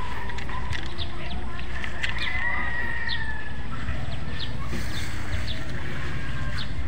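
A rooster crowing once, a long call about two seconds in, with short high chirps of small birds, over a steady low rumble.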